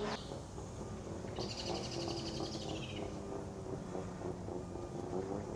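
A bird's fast, high-pitched trilling call starting about a second and a half in and lasting about a second and a half, over steady outdoor background noise.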